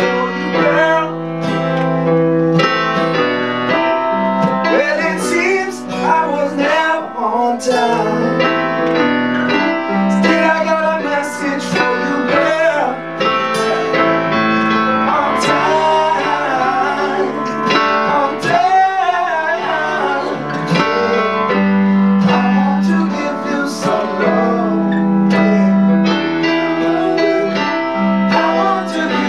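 A live band playing a song: strummed acoustic guitar and piano keyboard, with a man singing over them.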